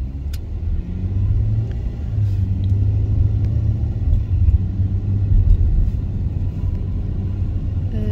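Low rumble of a car driving along a road, engine and road noise, growing louder about a second in.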